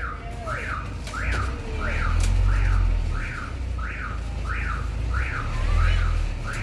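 Repeating electronic beeping, each beep rising then falling in pitch, about three every two seconds, over a low rumble.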